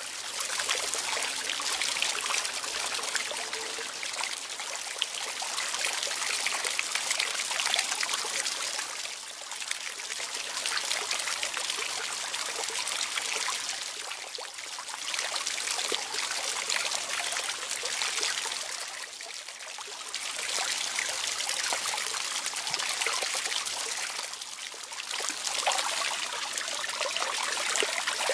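Running water trickling steadily, swelling and easing about every five seconds.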